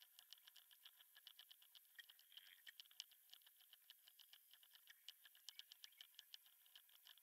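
Very faint, irregular small clicks and ticks: short jumper wires being pressed into a solderless breadboard with tweezers.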